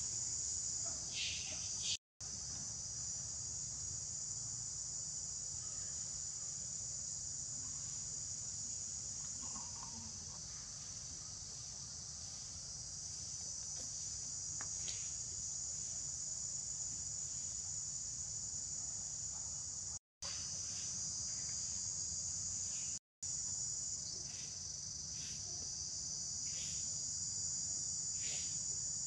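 Steady high-pitched chorus of insects over a low background rumble, with a few faint short chirps; the sound cuts out for a split second three times.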